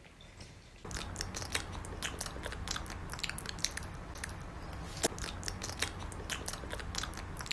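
Pomeranian puppies biting and chewing on wire loops: rapid, irregular, crisp clicks and crunches over a low steady hum, starting about a second in.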